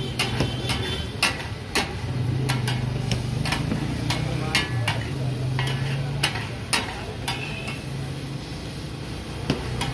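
Two flat metal spatulas clacking and scraping on a large flat iron tawa griddle as boneless chicken is chopped and turned for taka tak, in sharp irregular strikes about one or two a second. Underneath, the frying chicken sizzles steadily.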